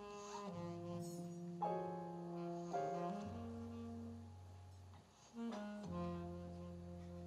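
Alto saxophone playing a slow line of long held notes, with a double bass sounding low underneath in a jazz band; the music drops away briefly about five seconds in.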